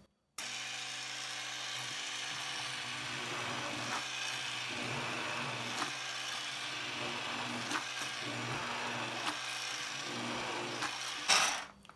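Hand-held immersion blender running steadily as it purees chunks of cooked pumpkin and zucchini in broth in a pot, with a few short knocks along the way. It starts about half a second in and stops near the end, just after a brief louder burst.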